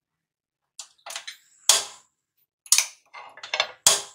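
A string of irregular sharp pops and clicks from a hot, oil-greased nonstick tawa heating on the stove, some single and some in quick clusters.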